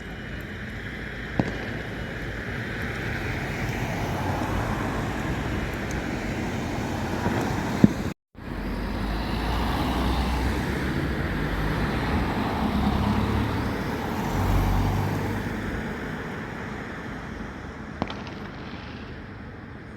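Road vehicles driving past: engine rumble and tyre noise swelling and fading. The sound cuts off abruptly for a moment about eight seconds in, and there are a few sharp clicks.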